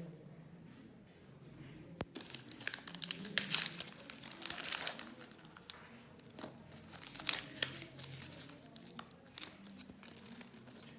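Wrapper or packaging crinkling and tearing as it is handled, in irregular crackly bursts, busiest about a third of the way in and again near two-thirds. There is one sharp click about two seconds in.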